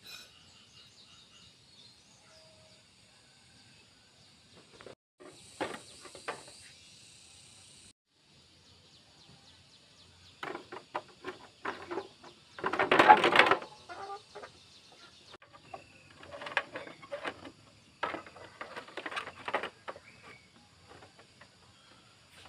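Scattered clinks, knocks and clatter of tools and parts being handled while a motorbike is taken apart and cleaned, with a louder noisy burst lasting about a second roughly halfway through.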